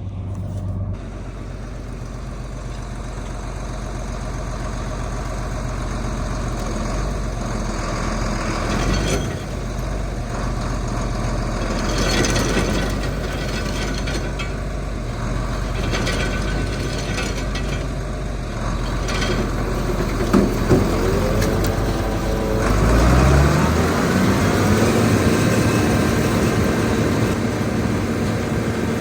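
Heavy machinery engine running steadily, then revving up with a rising pitch about three-quarters of the way through; a couple of short knocks just before the rev.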